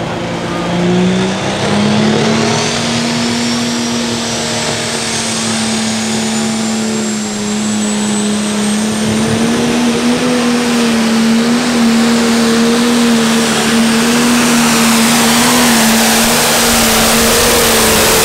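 John Deere Pro Stock pulling tractor's turbocharged diesel engine running at high, steady revs under full load as it drags the weight-transfer sled down the dirt track. A high whine climbs steadily in pitch through the first half, and tyre and dirt noise grows toward the end.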